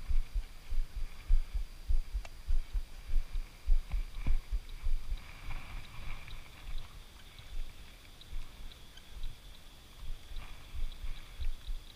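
Low, irregular thumping and buffeting on the microphone, with a faint steady high whine and light regular ticking from about halfway through.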